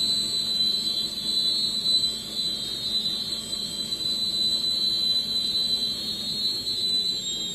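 Electric toothpick-cutting machine running, a steady high-pitched whine over a mechanical hum.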